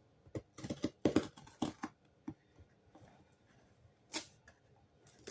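A shipping label being picked at and peeled off a cardboard box: a run of short scratches and small rips over the first two seconds, then one more short rip about four seconds in.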